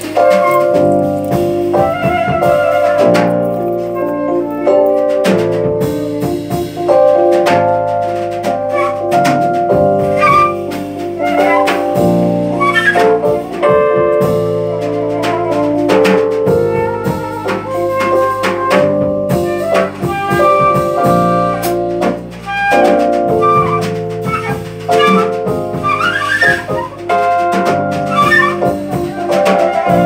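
Live jazz quartet playing: a flute carries the melody over a stage keyboard, electric bass guitar and drum kit.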